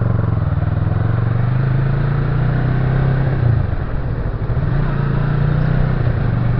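Motorcycle engine running steadily while riding, heard from on the bike; about halfway through the engine note drops away for a moment and then picks up again.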